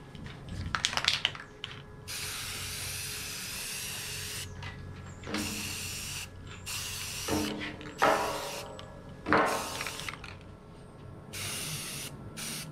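Aerosol can of spray primer sprayed in repeated hissing bursts, the longest about two seconds. Louder rattling and clicking from the can come near the start and between bursts.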